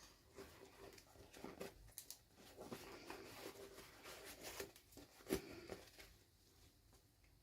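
Faint handling noise of miniature toy packaging: soft rustles and light clicks, with one sharper click about five seconds in.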